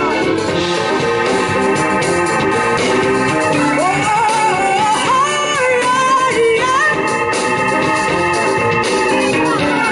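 Live R&B band playing: electric bass, drums, trumpet and an organ-toned keyboard. A lead melody slides up and down over held keyboard chords.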